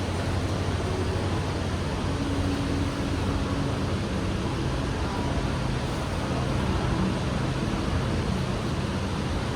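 Steady rushing noise of road traffic with a low hum underneath, even throughout.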